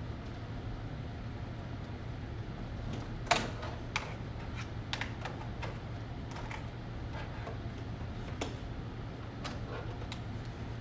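Scattered light clicks and taps of small hard objects being handled, with a louder knock about three seconds in, over a steady low hum.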